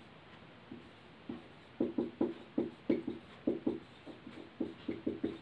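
Whiteboard marker squeaking against the board as words are written, a quick irregular run of short squeaks, one for each pen stroke, starting about a second in.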